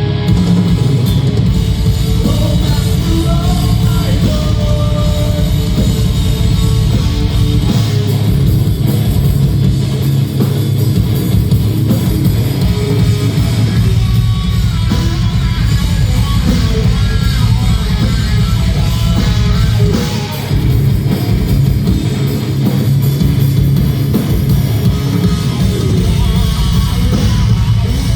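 Heavy metal band playing live, loud and dense, with a brief dip in level about two-thirds of the way through.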